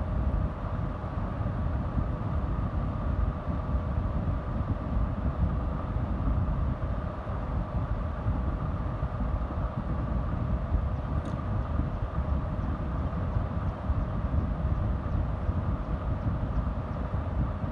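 Steady low rumble with a constant hum running through it, unchanging throughout, like a running motor or machine.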